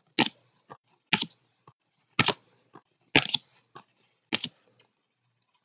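A stack of trading cards being flipped through by hand, giving a crisp click or snap about once a second as each card is moved, with fainter ticks in between.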